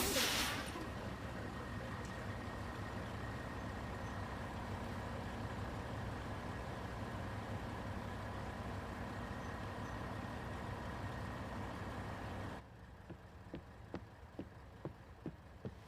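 A motor vehicle engine idling steadily after a brief loud burst at the start, then cutting off suddenly about twelve and a half seconds in. After it come light, quick, evenly spaced clicks.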